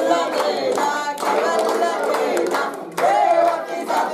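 A small group singing an aarti together, with hands clapping along in time.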